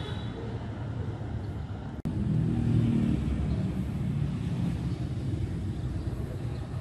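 Steady low rumble of road traffic, louder from about two seconds in.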